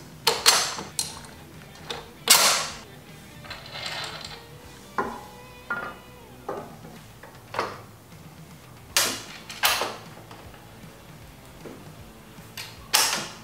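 Steel motorcycle crash bar and its mounting bolts clinking and knocking against the frame as they are handled and lined up by hand: about ten irregular sharp metallic taps.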